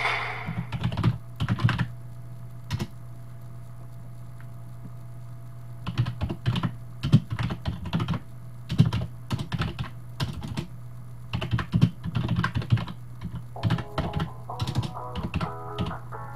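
Typing on a computer keyboard: uneven runs of key clicks with pauses between, over a steady low hum. Music comes back in near the end.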